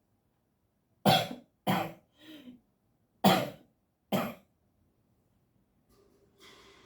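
A person coughing, acted rather than from a real cold: four sharp coughs in two pairs, with a softer throaty sound after the first pair.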